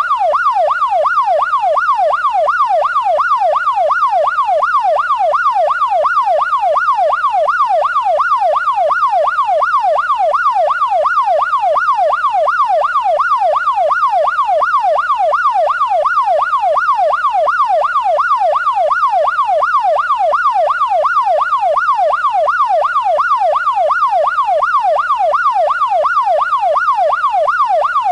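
Police siren in yelp mode: a loud, unbroken wail sweeping rapidly up and down in pitch, a little over twice a second.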